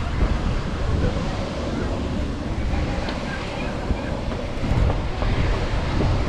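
Wind rushing and buffeting the microphone, a steady noisy rumble that swells and dips.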